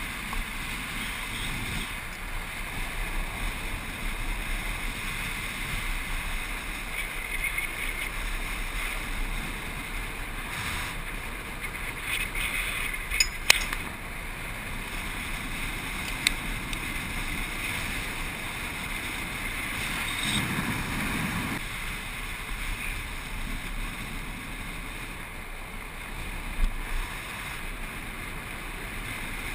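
Wind rushing over the microphone of a land yacht sailing fast across a hard dry lakebed, mixed with the steady hiss and rumble of its wheels rolling. A few sharp clicks and knocks from the craft break through, the loudest about thirteen seconds in.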